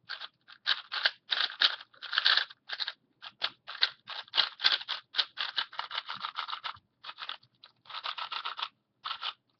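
MoYu Tangpo 2x2 speedcube being turned rapidly by hand: quick runs of plastic clicking and scraping from the layers turning, broken by short pauses.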